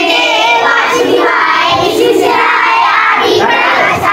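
A group of young children chanting a Hindu mantra together.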